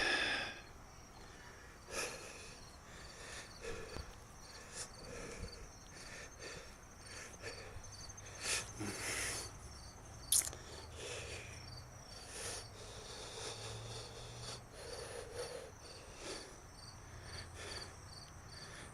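Faint outdoor ambience of insects chirping in a steady, evenly repeating high pattern, with a few short clicks and breathy noises close to the microphone.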